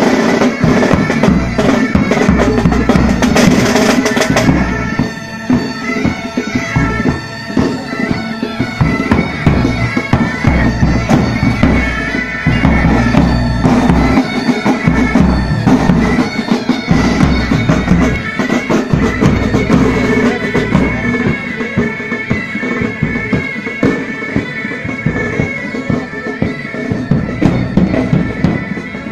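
Military pipe band playing a march: bagpipes sounding their steady drone and melody over marching side drums and bass drum. The band sounds a little quieter from about five seconds in.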